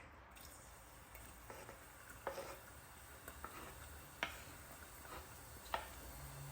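A utensil tapping and scraping in a pan while cooking, with several sharp light clinks over a faint sizzle of frying.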